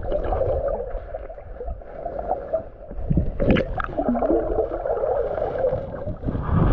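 Creek water gurgling and sloshing close to the microphone, muffled, with a deep rumble and a few knocks from movement, around three and a half seconds in and again near the end.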